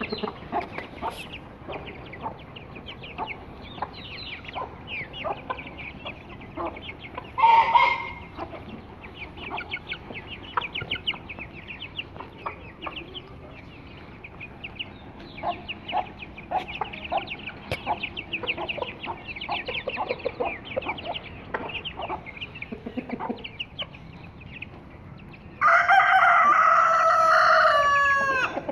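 Young Aseel chicks peeping continuously in short high chirps, with hens clucking among them and a brief louder call about seven seconds in. Near the end a rooster crows loudly for about three seconds.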